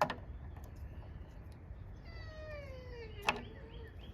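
A dog whining: one long high whine that slides down in pitch, starting about two seconds in, with a couple of sharp clicks. The dog is whining because its chain is caught on a bolt.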